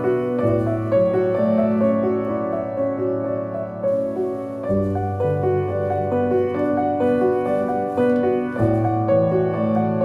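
Slow background piano music, with a low bass note held and changed about every four seconds.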